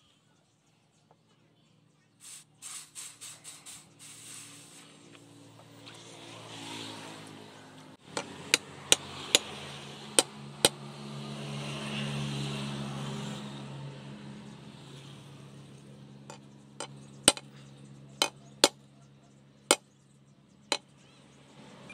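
A hammer tapping a wooden knife handle down onto its steel tang: sharp single knocks, a few at a time, after a quick run of lighter clicks early on. Behind them an engine hums steadily, rising in level toward the middle and fading again.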